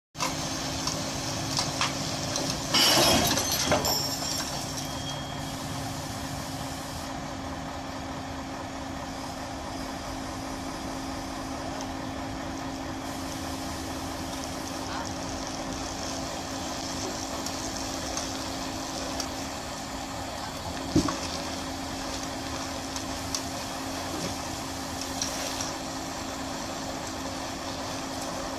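Heavy rotator tow truck's diesel engine running steadily during a wreck recovery. A brief loud rush of noise comes about three seconds in, and a single sharp knock about twenty-one seconds in.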